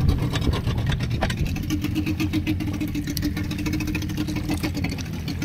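A small fishing boat's engine running steadily at low revs: a low rumble with a steady hum that settles about a second and a half in.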